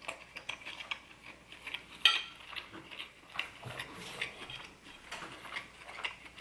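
A metal spoon clinks against a ceramic soup bowl, with one sharp clink about two seconds in and smaller clicks scattered through, over soft chewing.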